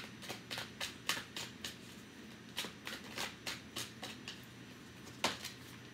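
Tarot cards being shuffled by hand: a run of short card snaps, about three a second, with a brief pause about two seconds in and one louder snap near the end.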